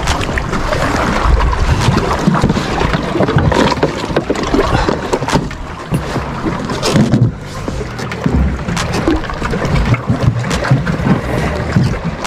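Wind buffeting the microphone on an open boat, a heavy irregular rumble, with many short knocks and clicks of handling throughout.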